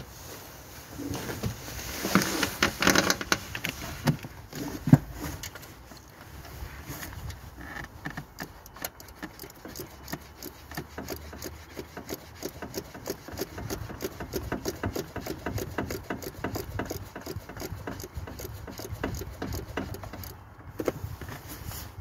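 Hand tools working in a car's engine bay: a few knocks and some clatter, then a long run of fast, even clicking from a ratchet wrench being worked, which stops near the end.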